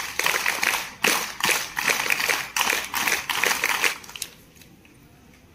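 A fast, uneven run of many sharp claps and slaps that dies away about four seconds in.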